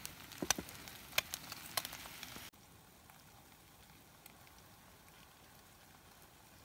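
Eggs sizzling in a frying pan, a steady hiss with scattered crackling pops. It cuts off abruptly about two and a half seconds in, leaving only a faint, quiet background.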